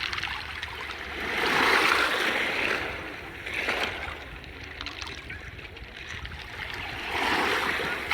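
Small waves washing onto the shore, the rush of water swelling and fading three times.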